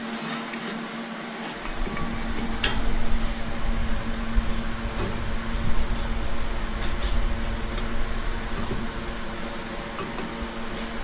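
Steady mechanical hum with a low rumble coming in about a second and a half in. A few light metallic clicks and knocks come from a brake caliper being fitted by hand over a disc rotor.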